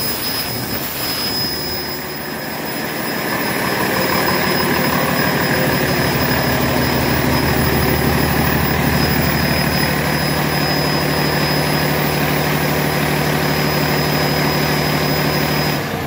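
Cummins ISL9 inline-six turbo diesel running steadily on an engine test stand, with a thin steady high whine over the engine note. It grows louder a few seconds in, then holds even. The seller says this engine runs excellent.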